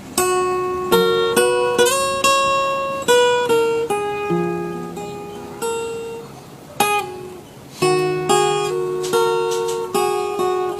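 Acoustic guitar strumming, with chords struck one after another and left to ring out.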